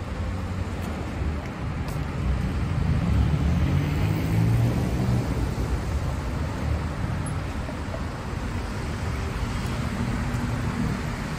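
City road traffic on wet streets: a steady hiss and rumble that swells as a vehicle passes about three to five seconds in.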